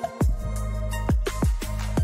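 Electronic background music with heavy sustained bass and a steady kick-drum beat. The bass comes back in just after the start.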